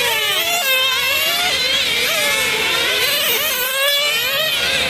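Several racing RC cars' motors whining at high revs, several pitches overlapping and rising and falling as the cars speed up and slow down.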